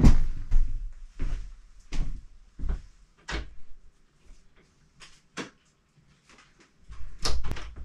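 A heavy bump at the start as a person gets up from a desk chair, then a string of separate sharp knocks and clicks from a room door being opened and shut.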